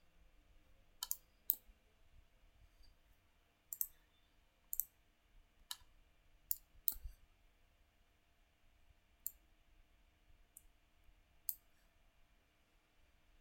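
Sharp clicks of a computer mouse and keyboard, about ten of them at irregular intervals, some in quick pairs, over a faint steady hum.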